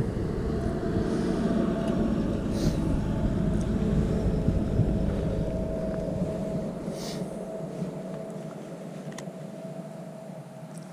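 Steady rumble of road traffic with a faint hum, slowly fading away.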